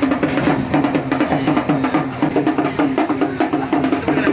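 Music with a fast, steady percussive beat of sharp wood-block-like clicks over a held low tone.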